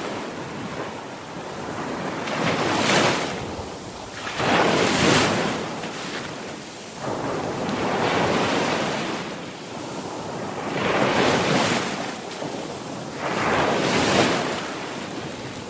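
Sea waves breaking and washing in, in about five surges that swell and fade every two to three seconds.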